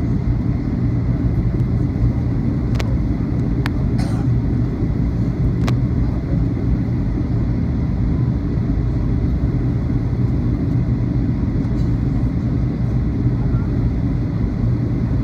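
Steady low rumble of jet engines and rushing air heard inside a jet airliner's cabin on approach to landing, with a few faint clicks about three to six seconds in.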